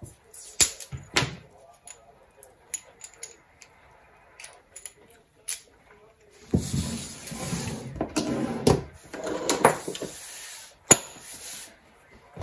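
Workbench handling sounds: small tools clicking and tapping on a wooden worktop, then about five seconds of scratchy, rustling noise broken by sharp clicks as the probe is worked on with pliers and electrical tape, and one loud click near the end.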